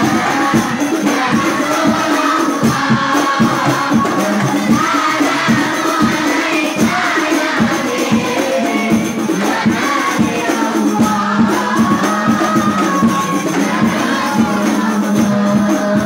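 Hadroh ensemble: a group singing a devotional song together over quick, steady strokes on rebana frame drums.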